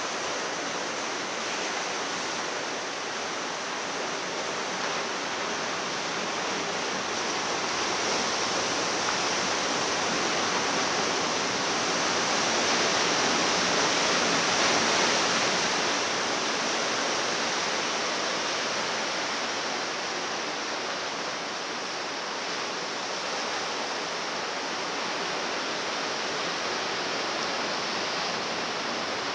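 Ocean surf washing in over a rocky shore during a south swell: a steady rush of water noise that swells a little in the middle.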